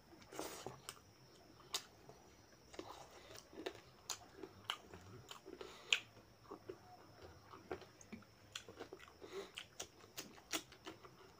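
A person chewing mouthfuls of rice and mutton curry eaten by hand, heard as many short, irregular mouth clicks and smacks.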